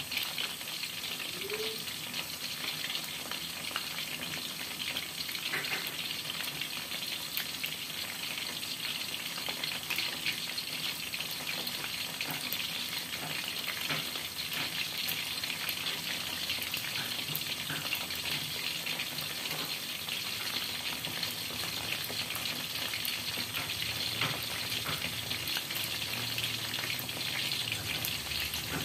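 Coated chicken breast fillet deep-frying in hot oil in a wok: a steady sizzle with fine crackles.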